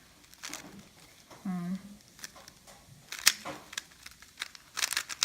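Plastic layers of a GAN 356 Air SM magnetic speedcube clicking and clacking as it is turned fast during a solve, in irregular runs of sharp clicks, the busiest near the end. A short hummed voice sound about a second and a half in.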